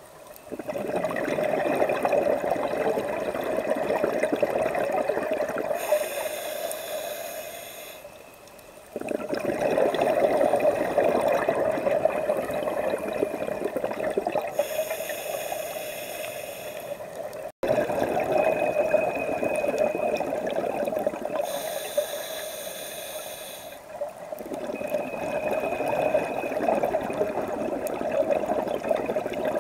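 Scuba diver breathing through a regulator underwater: four long bubbling exhalations alternate with three shorter hissing inhalations through the regulator.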